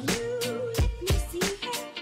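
Background music with a steady beat: regular drum hits under a melody line.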